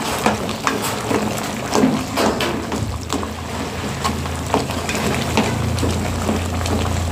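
Metal ladle knocking and scraping against an aluminium pot in irregular taps while boiled breadfruit pieces are mashed in their liquid. From about three seconds in, a low steady hum joins.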